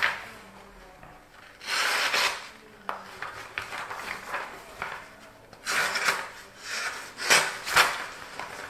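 Cold Steel Pocket Bushman folding knife slicing through paper in a cutting test: one stroke about two seconds in, then four quick strokes near the end. The edge partly tears rather than cleanly slicing, catching in the middle of the blade where it is dulled by small micro-chips.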